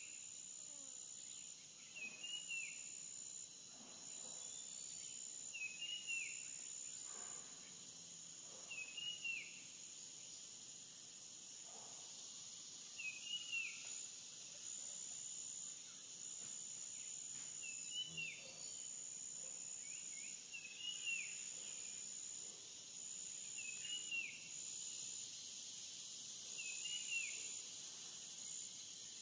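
Faint steady shrilling of forest insects that pulses on and off. A short hooked chirp comes about every two to four seconds, ten or so times.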